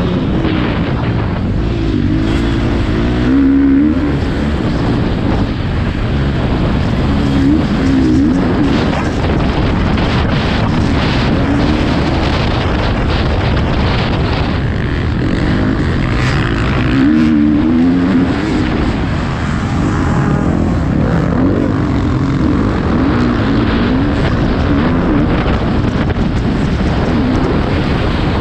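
Motocross bike engine heard close up from the rider's helmet camera, its revs rising and falling again and again as the throttle is opened and backed off through the turns.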